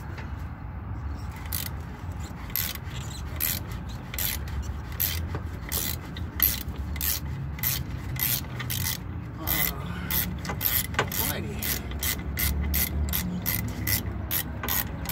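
Ratcheting wrench clicking in short strokes as it loosens the upper mounting nut of a car's rear shock absorber. The clicks come about two to three a second and grow quicker toward the end.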